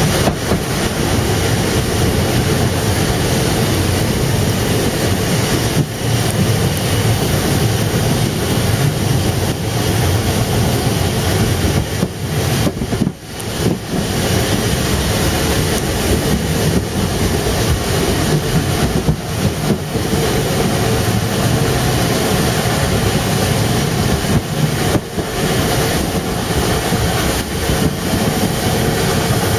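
Narrow-gauge steam train hauled by the 1914 tank locomotive 99 6101, heard from on board as it runs. The wheels and carriages make a steady, loud running noise, with a brief lull about thirteen seconds in.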